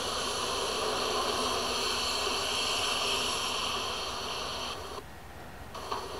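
Garden hose spray hissing steadily onto a planter of wet potting soil, cutting off about five seconds in.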